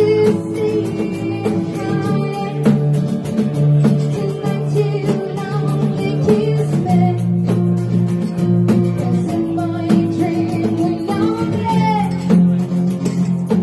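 Live acoustic band: a woman singing over several strummed acoustic guitars.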